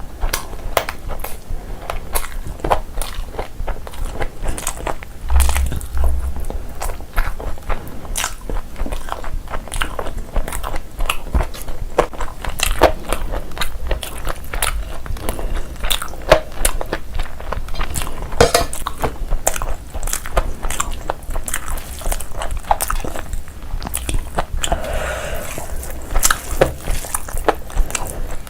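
A person eating close to the microphone, biting, chewing and crunching food in a dense run of short, sharp clicks, as in a mukbang recording.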